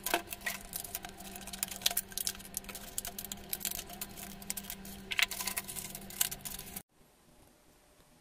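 Scissors snipping through thin plastic packaging, with crinkling and rustling of the plastic pieces and a steady low hum underneath. About seven seconds in, it cuts off abruptly to quiet room tone.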